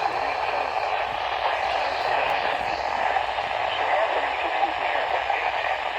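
Steady hiss of static from an off-air weather radio reception, with no clear signal coming through.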